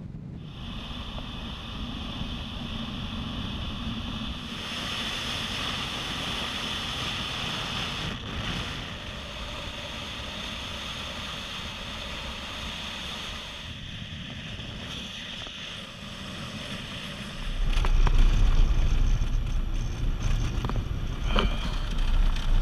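Steady rushing noise of the waterfall and water, mixed with wind on the microphone. About three-quarters of the way through, a much louder low rumble of wind buffeting the microphone takes over.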